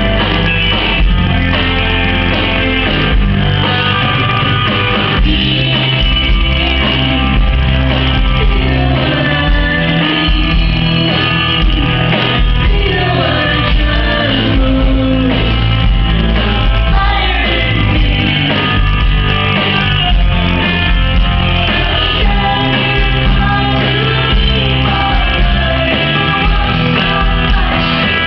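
Live rock song: a woman's lead vocal sung into a microphone over a band with electric guitar, loud and continuous.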